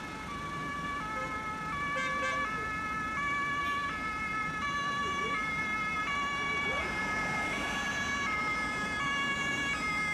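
German two-tone emergency siren (Martinshorn) on an approaching fire brigade van, switching back and forth between a higher and a lower tone, each held for under a second, over the hum of traffic.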